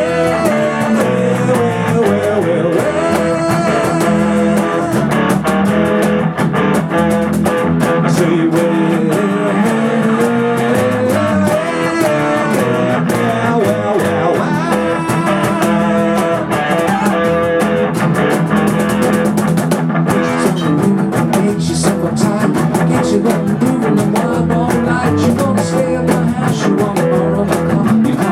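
Live rock band playing an instrumental break, with guitar to the fore over a steady bass and drums.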